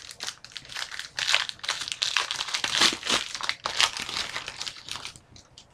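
Wrapper of a trading-card pack being torn open and crumpled, a rapid run of crinkling that stops shortly before the end.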